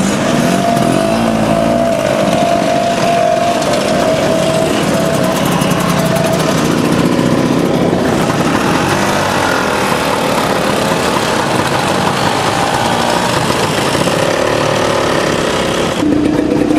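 Small two-stroke scooter engines running and revving as a line of scooters rides past, the engine note rising and falling. The sound changes abruptly about eight seconds in and again near the end.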